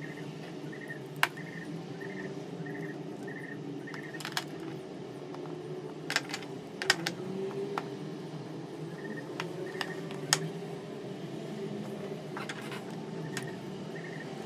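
Scattered sharp clicks and taps of small metal craft tools, a metal rod and tweezers, being handled against a shoe piece and the wooden worktable. Under them runs a steady low drone, with a soft high chirp repeating two or three times a second during the first few seconds and again later on.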